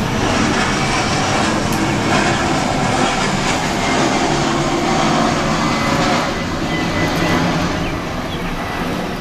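Airliner flying over, a loud steady rushing jet noise that eases slightly near the end.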